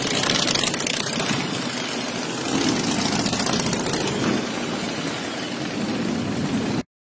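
Motorcycle engines and wind noise from a moving motorcycle, a dense, loud rush, cutting off suddenly near the end.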